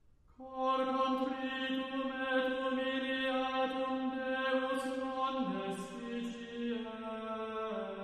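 Chant sung in long held notes, starting about half a second in; the pitch steps down about five and a half seconds in and again near the end, with a few soft sibilant consonants between notes.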